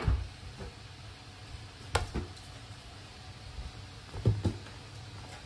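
Dull thuds of a large inflatable ball being batted and bounced by a toddler: one at the start, then two quick pairs about two seconds apart.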